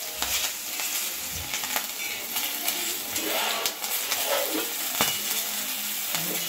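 Green chillies sizzling in hot oil in a wide dark pan, with a metal spatula scraping and tossing them; a steady hiss with scattered scrapes and clicks, one sharper clack about five seconds in.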